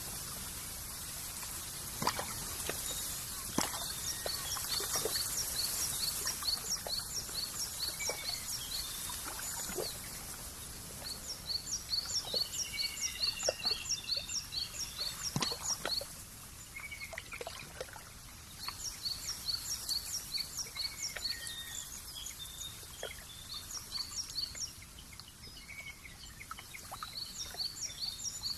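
Outdoor nature ambience: a bird repeats a short, high, falling chirp about three times a second in bouts of several seconds, over a steady hiss. A few soft clicks are scattered through it.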